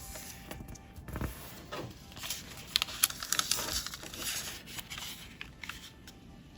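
Square of colored origami paper being folded and creased by hand: rustling and crinkling with sharp crackles, busiest about two to four seconds in.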